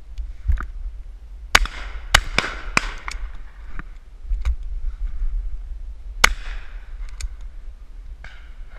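Shotgun shots on a driven shoot: a run of sharp reports, each trailing off in an echo, with the loudest pair about half a second apart near the start and another loud one about six seconds in, and fainter shots from guns further off in between. Wind rumbles on the microphone underneath.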